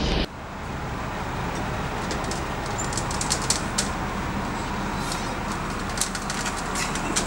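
Steady background traffic noise with scattered light clicks and ticks over it, beginning abruptly just after the start.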